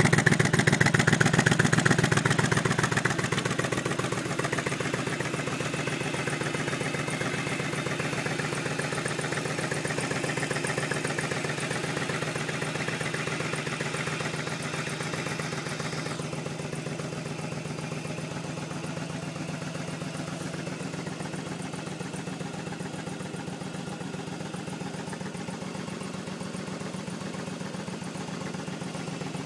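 Yamaha Drag Star 1100's air-cooled V-twin motorcycle engine running steadily. It is louder for the first few seconds, then settles to an even, lower level.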